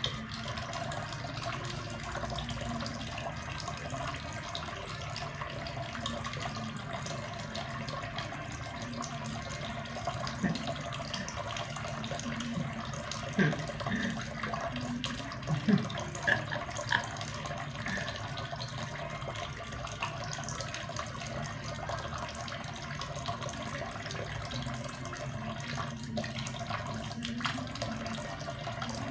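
A kitchen faucet running a thin, steady stream of water into a stainless steel sink. A few brief sharp sounds stand out about halfway through.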